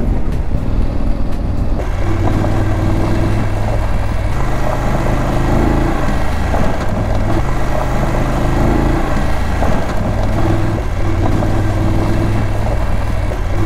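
Motorcycle engine running while riding, with wind and road noise; the sound changes character about two seconds in.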